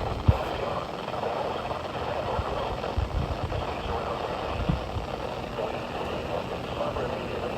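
Off-air radio receiver static, a steady crackling hiss, with a few low thumps.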